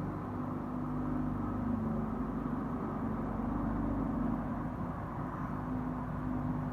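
A steady, low, horn-like drone: one held tone with weaker lower tones beneath it, over a constant rumble. The uploader takes it for an unexplained trumpet sound in the sky; its source is not identified.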